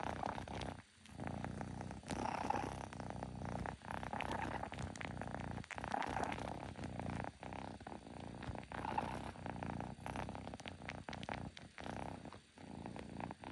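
A kitten purring loudly and continuously, the purr swelling and dipping with its breaths, with small clicks here and there.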